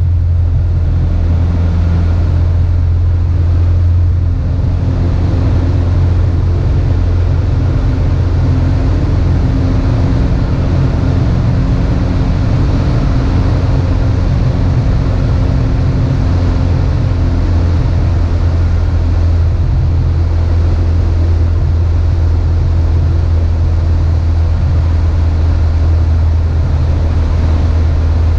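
Cessna 150's four-cylinder Continental O-200 engine and propeller droning steadily in flight, heard inside the cabin as a loud low hum with wind rush over it.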